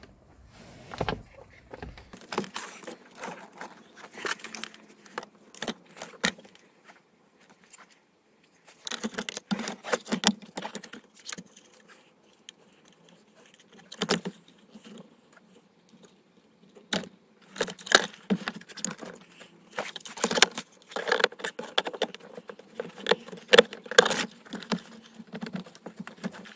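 Irregular clicks, rattles and knocks of hard plastic and wiring being handled as a new heater blower motor is fitted into its housing under the dashboard, thickest in the second half.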